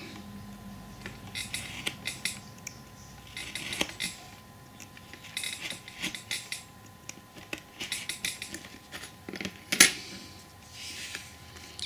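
Craft knife blade scratching through thin card along a steel rule, in several short cutting strokes of about a second each, with one sharp click about ten seconds in.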